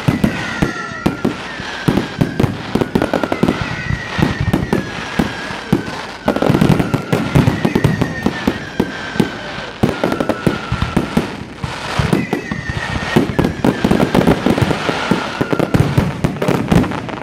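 Fireworks display: rapid, dense bangs and crackling from shells bursting overhead, heaviest in two waves about six and thirteen seconds in. A high falling whistle recurs every second or two.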